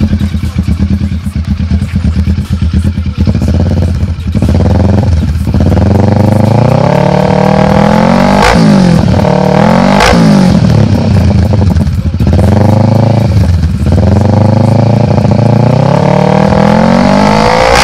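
Kawasaki Ninja 650's parallel-twin engine running through a PR2 aftermarket carbon-fibre muffler, idling for a few seconds and then revved repeatedly while standing. The pitch climbs in long sweeps to sharp peaks about eight and ten seconds in and again near the end, dropping back in between.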